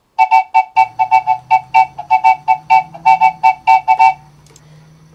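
Opening jingle: a rapid run of short, staccato, whistle-like notes on nearly the same pitch over a low held bass note that steps up once. It stops about four seconds in.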